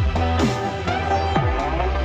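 Background electronic music with deep bass and falling pitch sweeps.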